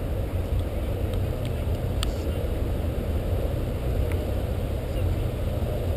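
Steady low outdoor rumble with no clear pitch, heaviest in the deep bass, with a few faint distant knocks.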